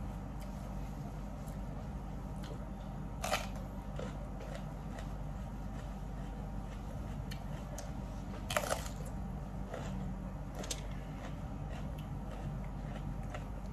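Mukbang eating sounds: chewing with two sharp crunches, about three seconds in and about eight and a half seconds in, and a few faint clicks, over a steady low hum.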